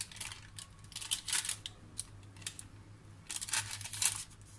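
A spatula scraping over parchment paper and thin sponge cake batter in a baking tray as the batter is spread out, in a series of short, irregular rasping strokes.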